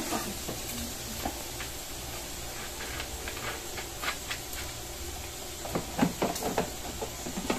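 Pork with garlic and onion sautéing in a pan with soy sauce, hissing steadily, while a spatula knocks and scrapes against the pan a few times, most sharply about six seconds in.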